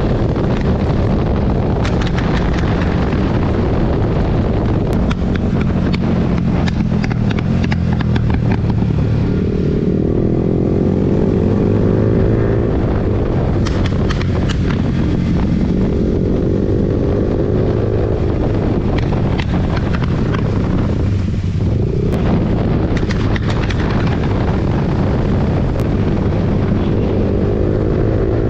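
Royal Enfield GT 650's parallel-twin engine under way with a Code 6 tune, its pitch rising three times under acceleration, with clusters of sharp exhaust crackles and pops in between.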